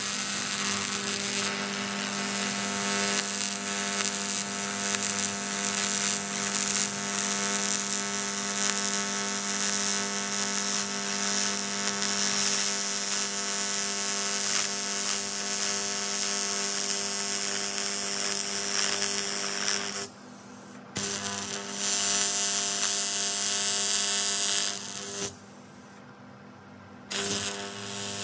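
AC TIG welding arc on an aluminium exhaust pipe: a steady buzzing hiss as the seam is welded. The arc cuts out about twenty seconds in and again about twenty-five seconds in, each time restarting a second or two later.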